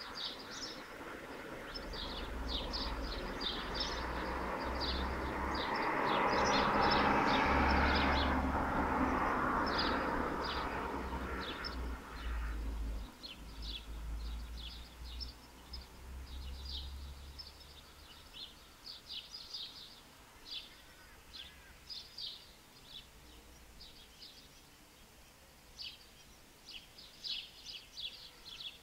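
Small birds chirping in short, quick high calls throughout. Over the first dozen seconds a broad rushing noise with a low rumble swells, peaks about seven or eight seconds in, then fades away.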